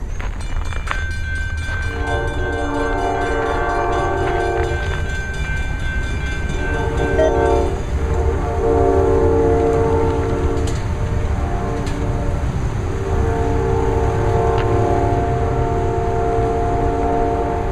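An approaching diesel locomotive's horn sounds four blasts, the second one short, over the low rumble of the train.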